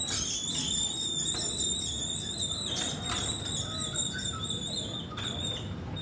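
Motorised sliding gate squealing steadily as it slides open, a high shrill tone over a low motor rumble, breaking up into short squeaks near the end. The squeal comes from the gate not yet being lubricated.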